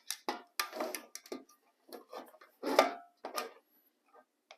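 Irregular light clicks, taps and knocks of tools and a sheet-metal cab corner patch panel being handled while measuring, one tap about three seconds in ringing briefly.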